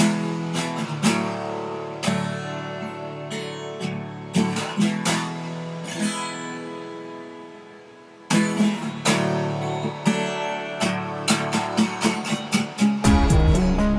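Music: an instrumental break in a pop song, acoustic guitar picked and strummed, briefly fading around the middle before picking up again, with deep bass coming in near the end.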